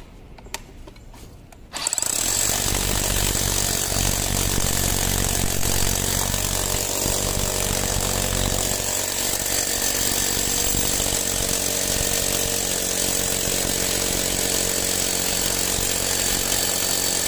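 Makita HR005G 40V cordless rotary hammer in hammer-drill mode, starting up about two seconds in and then drilling steadily into a concrete block with a masonry bit.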